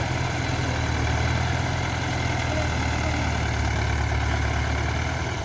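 Diesel tractor engine running at a steady speed with a deep, even hum.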